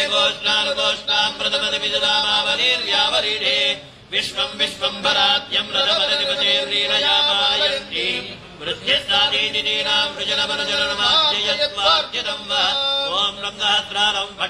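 Male voices chanting Sanskrit mantras together in long, held lines, with short breaks for breath about four and eight seconds in.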